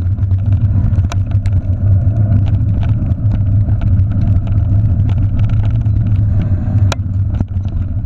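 Steady wind and trail rumble picked up by a handlebar-mounted camera on a bike being pulled fast along a dirt trail by sled dogs. A few sharp knocks from the bike jolting over bumps come about a second in and again near the end.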